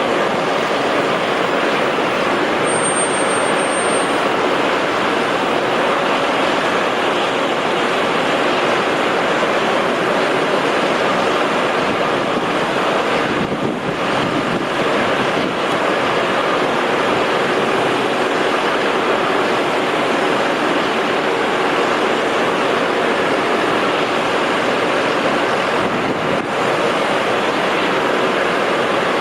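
Jet engines of an Airbus A380 running steadily, a continuous rushing noise with a faint whine in it. A short, thin high whistle sounds about three seconds in.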